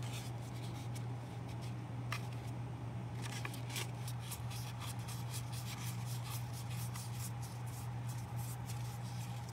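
A strip of paper rustling and crackling in small irregular clicks as it is rolled tightly around a pencil by hand, more often from about three seconds in, over a steady low hum.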